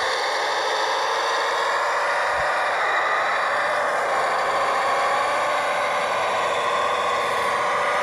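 Radio-controlled model construction machine running, its electric drive motors and gearboxes giving a steady whine of several tones.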